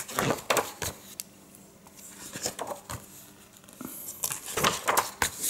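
Pages of a large hardcover comic-strip book being turned by hand: paper rustling and flapping in quick sweeps, a cluster in the first second and another near the end.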